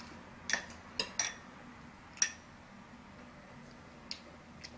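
Metal chopsticks and a metal spoon clinking against a small bowl during a meal: about six light, sharp clinks at uneven intervals, the loudest about two seconds in.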